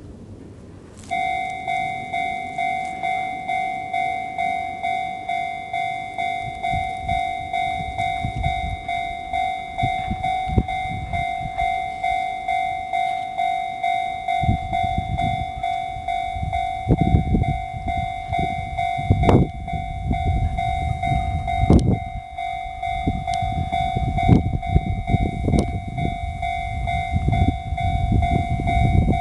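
Electronic level-crossing warning bell in the Chichibu Railway's own bell tone, starting about a second in and dinging in an even repeating rhythm. In the second half a Chichibu Railway 1000 series electric train rumbles over the crossing, its wheels clacking over the rail joints, while the bell keeps ringing.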